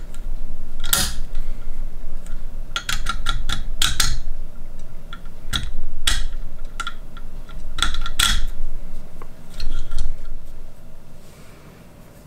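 Metal clicks and clinks as a knife is unclamped and repositioned in the clamp jaws of a KME knife sharpener. Sharp taps come in clusters and die away near the end.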